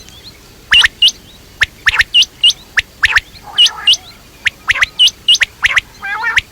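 Quail calling: a quick string of short, sharp high-pitched chirps, often in pairs, with a few rougher, lower chattering notes among them.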